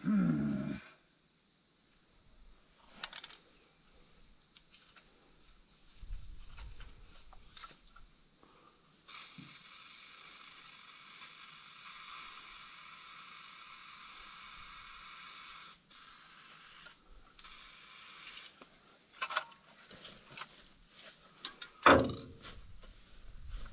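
Aerosol can of Pintrol penetrating oil spraying in a steady hiss for about seven seconds, lubricating a stiff bush hog jack, with a few small clicks and one loud knock near the end.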